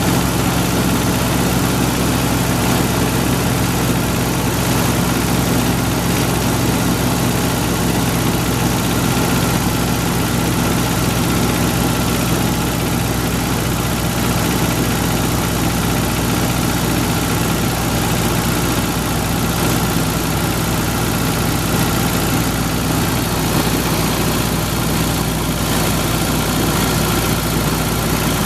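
Suzuki Escudo engine idling steadily while still warming up after a cold start in −20 °C frost, with the cylinder-head knock ("стук головки") the owner is listening for.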